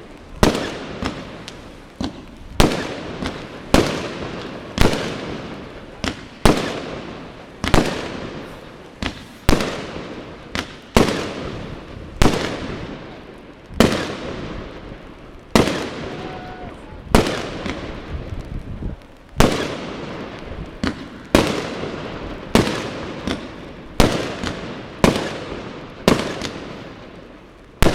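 Fireworks display: a rapid series of loud bangs from bursting aerial shells, about one a second, each followed by a long echoing rumble that fades before the next.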